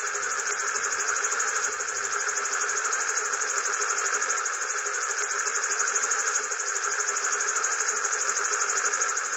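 Spinning propellers giving a steady buzzing whir with a fast flutter, unchanging throughout.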